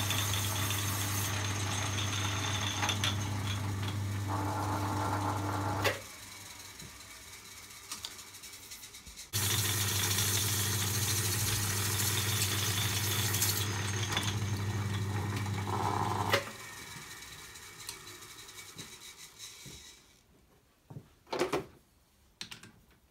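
Drummond B-Type lathe, built early in the last century, running with a steady hum. It stops about six seconds in, starts again about three seconds later, and stops again about seven seconds after that. Near the end come a few short clicks.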